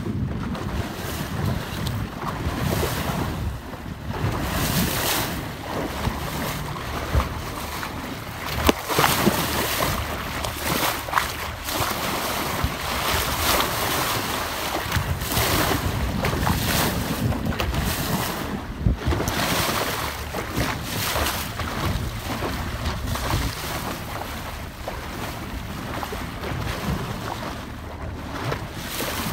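Wind buffeting the microphone in uneven gusts over the wash of sea water along the side of a moving boat, with a few sharper splashes.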